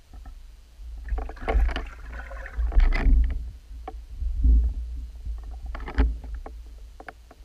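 Muffled underwater water noise picked up through a camera's waterproof housing: a low rumble with irregular sloshing and knocks, loudest from about a second to three seconds in, and again around four and a half and six seconds in.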